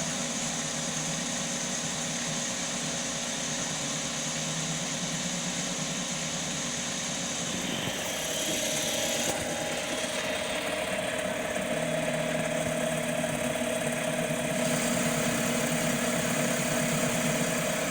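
CNC mini lathe running steadily, with its spindle and stepper motors humming in several steady tones as it turns an aluminium part with a carbide tool. The pitch of the whine shifts about eight seconds in and again a few seconds later as the machine changes moves.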